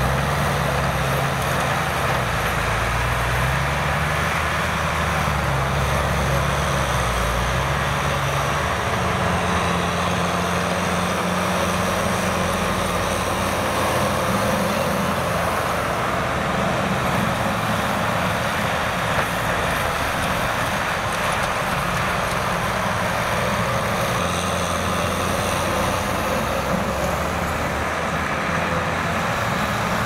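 Kubota M6040SU tractor's diesel engine running steadily under load while its rear rotary tiller churns through dry soil. The engine's pitch wavers a little over the first several seconds.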